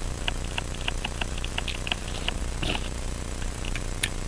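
Small, irregular clicks, several a second, of a watchmaker's screwdriver turning a screw out of the top plate of an 1880s Illinois full-plate pocket watch movement. One sharper click comes near the end, with a steady low hum underneath.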